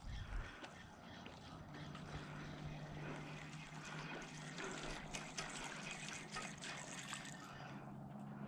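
Faint water trickling and splashing, with many light clicks through the middle.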